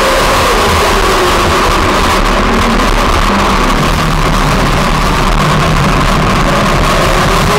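Racing ride-on lawn mower engine running hard, heard close up from a camera mounted on the mower's hood. Its pitch dips about a second in and rises again near the end.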